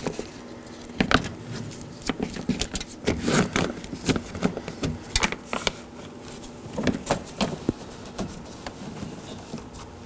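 A plastic door vapor barrier sheet crinkling and rustling in irregular crackles as it is pressed by hand back onto the door's adhesive.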